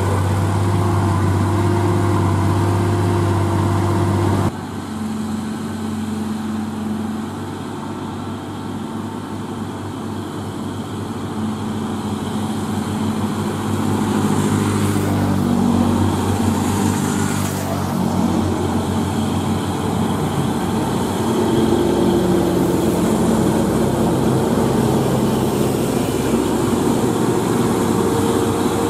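Heavy truck's diesel engine running with a steady low drone, cut off abruptly about four seconds in. Then a Hino truck's diesel engine approaches, its note rising and falling through gear changes and growing louder as it comes close.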